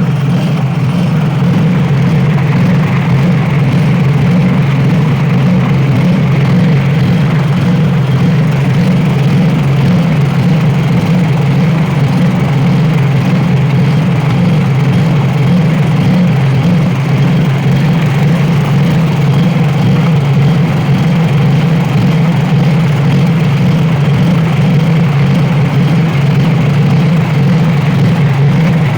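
A 7 hp petrol engine running steadily at a constant speed, driving a homemade walnut-hulling machine.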